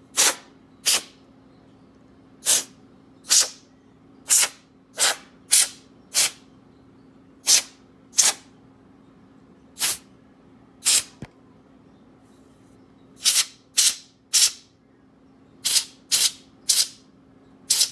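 Canned compressed air (air duster) fired through its straw nozzle in short, sharp hissing blasts, about twenty in irregular runs, blowing dust out of a laptop's cooling fans and circuit board.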